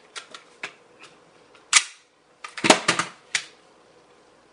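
Sharp clicks and clacks of a Glock-pattern pistol being handled and put back together, slide and parts snapping into place: a few light clicks, a loud clack near the middle, then a quick cluster of clacks.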